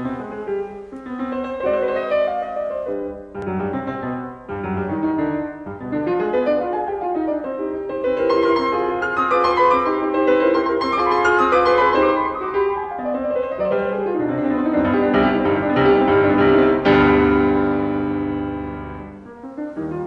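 Piano music playing, growing louder to a held chord about seventeen seconds in that then dies away.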